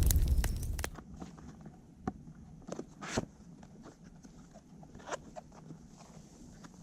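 Small wood fire in a titanium wood stove crackling, with scattered sharp pops and snaps, one louder snap about three seconds in. In the first second a louder, denser rush of crackling noise drops away suddenly.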